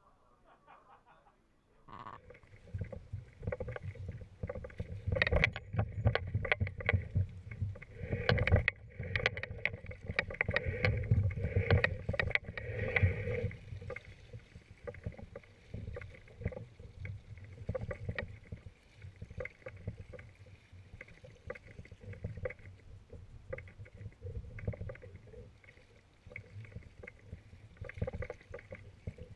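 Kayak paddle strokes, the blades dipping and splashing in the water in an irregular rhythm over a low rumble. They start about two seconds in, are loudest in the first half, and are quieter and patchier after that.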